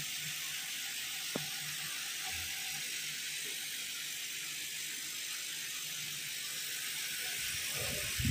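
Steady hiss with a faint low hum from the CO2 laser cutting machine's fans running while the cutting head stands idle. One light click about a second and a half in as a cut acrylic piece is handled.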